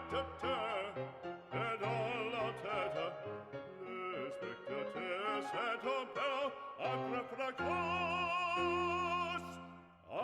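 Background music in a classical, operatic style: a singing voice with strong vibrato over accompaniment, holding one long note near the end.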